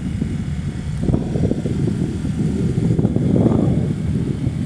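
Motorcycle engine running under way, mixed with a rumble of wind over the microphone, growing louder about a second in.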